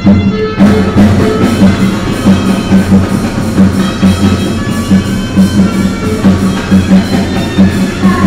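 Loud upbeat music with a steady, driving drum beat.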